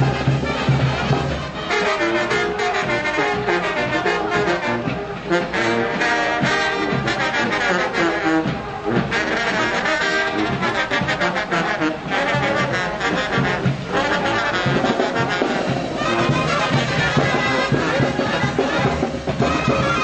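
Marching brass band with a sousaphone, playing a tune without a break.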